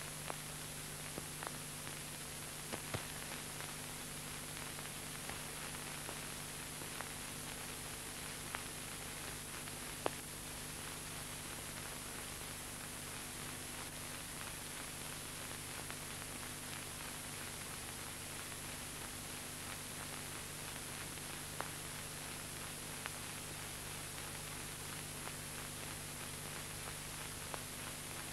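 Steady hiss and low hum of an old film soundtrack, with a few faint scattered clicks.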